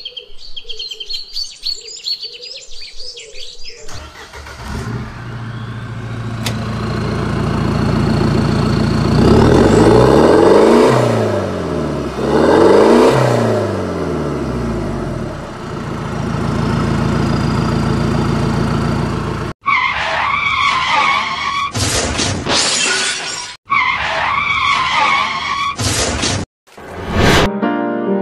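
Brief bird chirping, then a steady car engine sound that twice revs up and falls back before cutting off suddenly. A string of short, repeated music-like sound effects with brief silent gaps follows.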